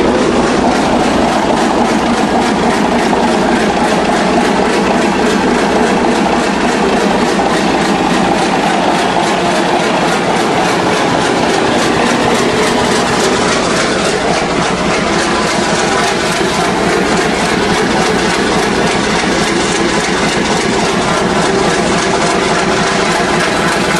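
Mirrlees U-type stationary diesel engine running steadily, a loud continuous rapid firing clatter.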